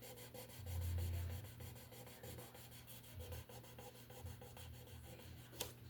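Hand sanding on a mandolin in quick, even back-and-forth strokes, with a brief low bump about a second in and a sharp click near the end.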